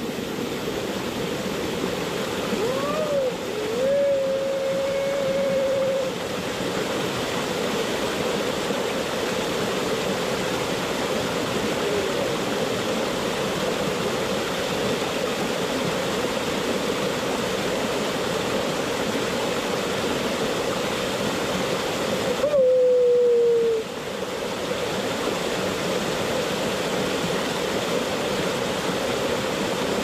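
River stream rushing steadily, a constant even wash of water. Twice a short held tone sounds over it: a few seconds in, and again, louder and sliding down a little, about 23 seconds in.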